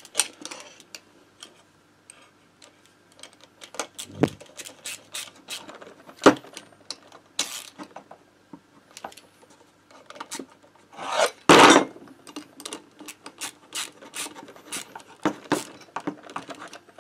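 Hand tools working bolts into a Motobécane AV89 moped engine case: a quick, irregular run of small metallic clicks and scrapes as a socket wrench turns the bolts down, with a couple of light knocks and one louder scraping clatter about eleven seconds in.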